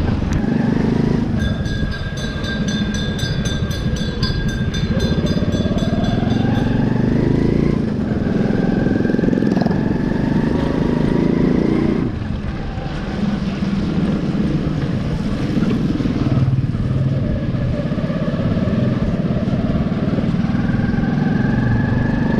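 Small motorcycle engine running under way. Its pitch climbs over several seconds as the bike speeds up and then drops back, three or four times.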